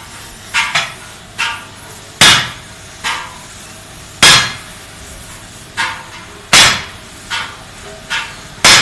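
A hammer striking metal about a dozen times at an uneven pace, roughly once a second, each blow ringing briefly; the heaviest blows come about two, four and six and a half seconds in and just before the end.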